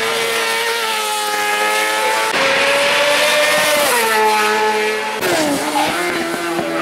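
Racing motorcycle engines at high revs, their pitch sliding down as a bike slows for a corner about four seconds in and climbing again near the end. The engine note changes abruptly twice between passing bikes.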